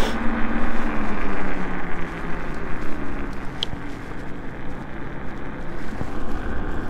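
iSinwheel GT2 electric scooter being ridden on a wet road: wind rushing over the microphone and tyre noise, with a steady hum from the scooter's motor that falls in pitch and fades about two to three seconds in as it slows down.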